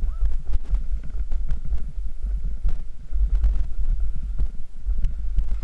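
Snowboard sliding downhill over chopped-up, tracked snow, the base scraping and chattering with many small uneven knocks, under a heavy rumble of wind buffeting the microphone.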